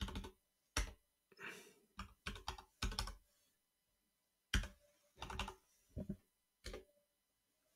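Computer keyboard keystrokes typing out a command, a few quick clicks at a time with an irregular rhythm and a pause of over a second midway.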